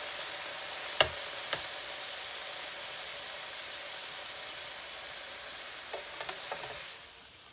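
Beef roast sizzling in an electric countertop skillet that has been switched off and is cooling, the sizzle slowly fading and then dropping away near the end. Two sharp clicks about a second in.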